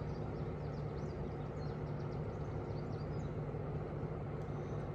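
Steady low engine drone, unchanging in level, with faint high chirps over it.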